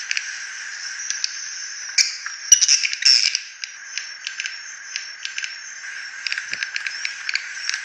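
Recorded edible-nest swiftlet lure call: rough, raspy twittering chirps and clicks repeating several times a second, with a louder flurry of chirps about two to three seconds in.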